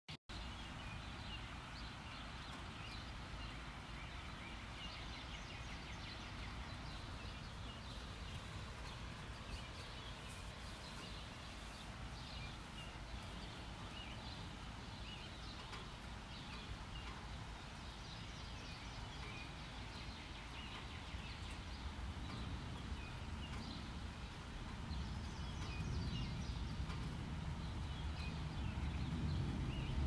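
Many small birds chirping over a steady hiss of gentle rain, with a low car engine rumble growing louder over the last several seconds, as a car pulls in.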